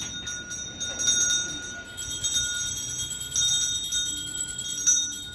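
Puja hand bell rung without pause during the worship, a continuous shaking ring.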